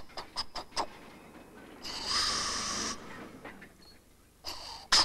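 Steam-train sound effects: a few short chuffs, then a hiss of steam about two seconds in, then rapid, even chuffing that starts near the end.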